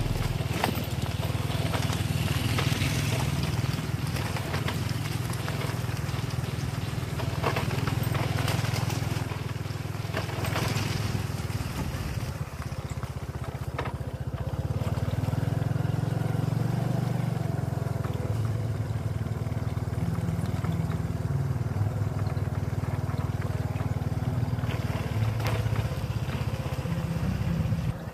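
Small motorcycle engine running at low speed up a broken, potholed road, its pitch rising and falling with the throttle. Knocks and rattles come from the bumps.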